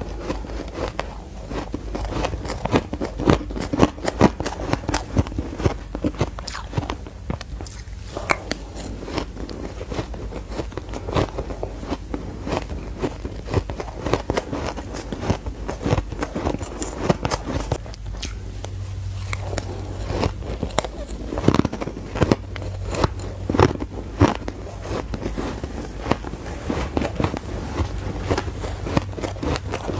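Close-miked crunching and chewing of purple shaved ice, bitten off a spoon mouthful after mouthful: a dense run of sharp crisp crackles.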